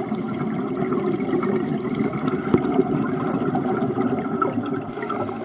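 Scuba divers' exhaled regulator bubbles gurgling and rumbling underwater, a dense steady bubbling with scattered sharp clicks.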